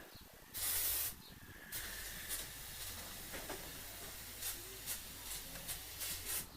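A short, loud spurt of hissing spray about half a second in, then a fainter steady hiss with scattered light clicks and knocks, while brakes are being bled at the wheel.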